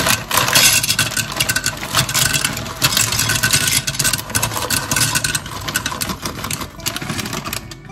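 Dry penne pasta poured from a bag into a ceramic slow-cooker crock, the pieces clattering against the crock and each other in a dense rattle that thins out near the end.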